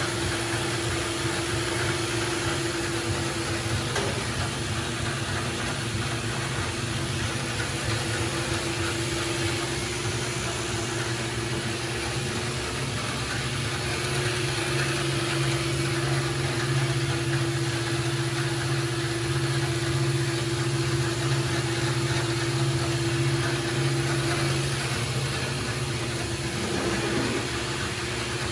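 Grob NS18 vertical band saw running idle under power: a steady electric motor and drive hum with a constant tone.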